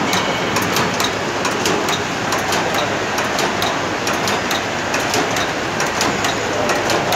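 YKHMI ZK-820-1 automatic hangtag-making machine running, its stringing and knotting mechanism clicking sharply a few times a second over a steady background noise.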